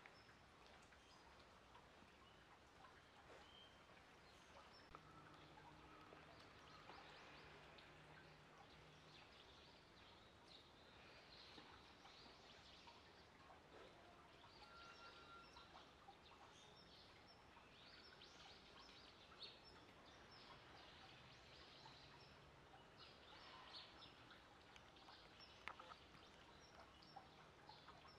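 Near silence: faint outdoor background noise with a few faint high chirps and ticks.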